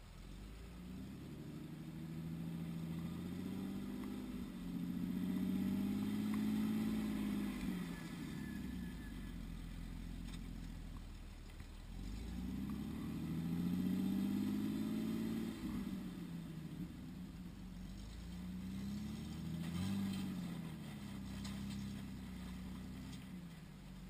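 Engines of lifted off-road rigs revving up and easing off in three long swells as they crawl up a rocky ledge, the loudest as one rig passes close by.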